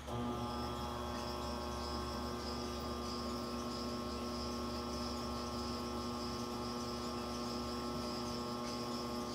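Aronson HD-100 welding positioner's electric tilt motor and gear drive running under pendant control, tilting the 48-inch table. It switches on abruptly and holds a steady hum with a high whine.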